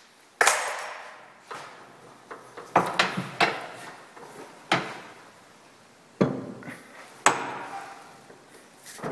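Sharp metal-on-metal clanks and knocks, about eight spread unevenly over several seconds, each ringing briefly, as lathe tooling and a center drill in its chuck are handled and set up.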